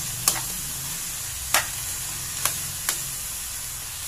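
Goat meat sizzling as it sautés in oil in a stainless steel pot, stirred with a metal spoon that clinks against the pot four times.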